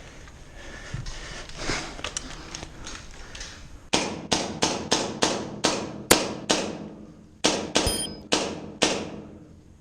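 Low background noise, then from about four seconds in a string of about a dozen sharp cracks, two or three a second, each ringing out briefly, stopping about nine seconds in.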